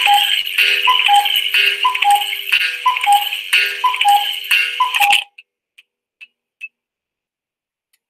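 Cuckoo clock calling 'cuckoo' over and over, a falling two-note call about once a second, six times, cut off suddenly about five seconds in.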